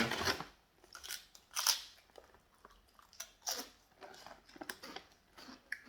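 Person biting and chewing a crispy fish-flavoured snack: irregular crunching and crackling, bite after bite.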